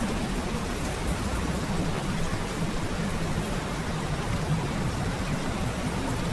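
Heavy rain falling steadily from a typhoon, an even, unbroken noise.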